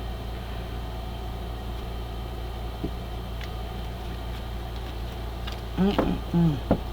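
A steady low hum, with a few brief vocal sounds near the end.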